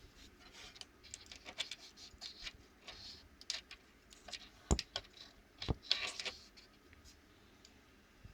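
A run of light, irregular clicks and taps of hard objects being handled, with two sharper knocks about a second apart just past the middle.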